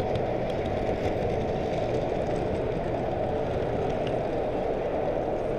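Model train running on its track, heard close up from a car in the train: a steady running noise of wheels rolling on the rails and the drive gear, even throughout.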